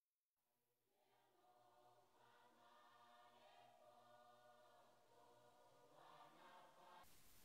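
Near silence, with a choir singing very faintly. A faint even hiss comes in near the end.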